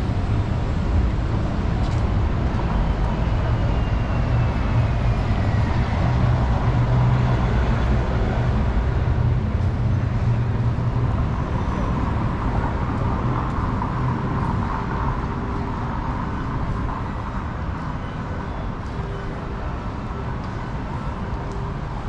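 City street traffic: motor vehicles passing with a steady low engine rumble, loudest in the first half and easing off toward the end.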